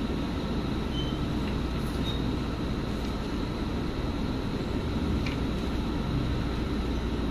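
Steady low hum and rumble of room noise, typical of a window-type air conditioner running, with a faint click about five seconds in.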